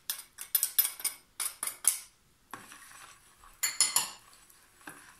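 Wire whisk beating a thin liquid mix of milk, oil and egg whites in a plastic bowl, its wires clicking and scraping against the bowl in quick strokes, about five a second. The strokes pause briefly after about two seconds, then come again in a short burst near the end.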